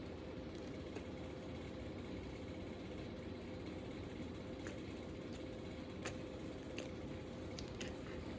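Steady low mechanical hum, with a few faint short clicks of someone eating pizza, spaced out across the second half.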